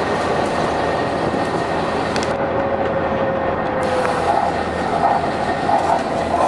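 Volvo B9TL double-decker bus running, a steady engine and road noise with a faint whine that dips slightly in pitch midway.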